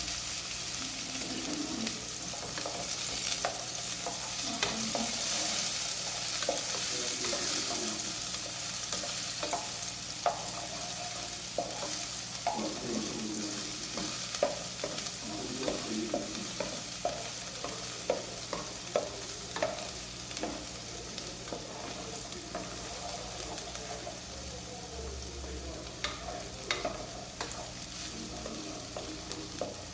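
Chopped onion sizzling as it sautés in a hot pan, the sizzle easing off somewhat over the stretch. Short clicks and scrapes of a utensil stirring against the pan come at irregular moments, thickest in the middle.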